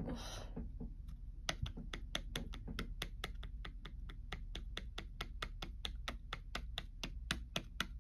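Quick, light clicks, about five or six a second, starting about a second and a half in: a plastic toy pet figure tapped rapidly against a small toy desk by hand.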